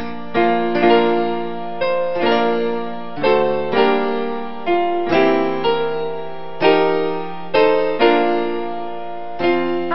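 Slow piano music: single notes and chords struck about once a second, each left to ring and fade.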